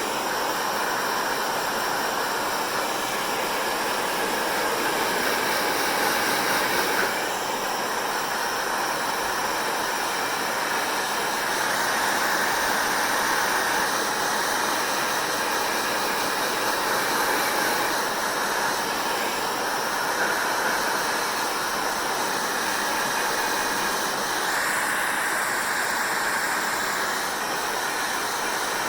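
Electric hair dryer running steadily, a continuous hiss of blown air with a few slight shifts in tone.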